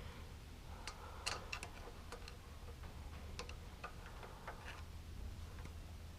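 Faint, scattered light clicks and taps of hand tools on metal as the carburetor's mounting bolts are tightened, over a low steady hum.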